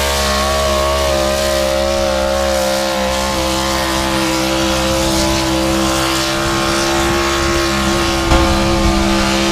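Pickup truck engine running hard at steady revs under full load as it drags a weight-transfer sled down a pull track, its pitch dipping slightly in the first couple of seconds and then holding.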